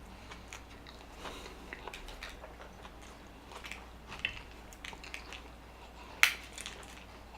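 Close-miked chewing and biting of fast food: small wet mouth clicks and soft crackles, with one sharp, louder click about six seconds in.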